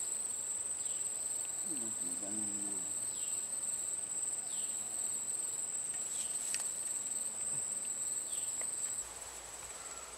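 Insects trilling steadily in one continuous high-pitched drone, a little quieter from about nine seconds in.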